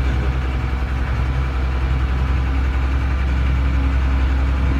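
Renault 6x6 truck's diesel engine running steadily with an even low hum, heard from inside the cab.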